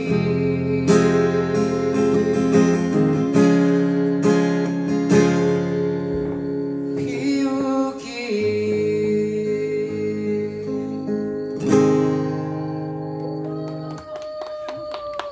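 Acoustic guitar strummed through the closing bars of a song, chords ringing between strokes, with a last strummed chord about twelve seconds in that rings out and fades.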